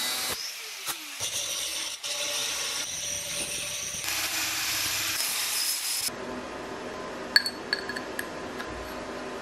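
Bosch angle grinder cutting a steel plate held in a vise. About six seconds in the grinding stops abruptly, and a few light metallic clinks follow as a steel rod is set against the plate.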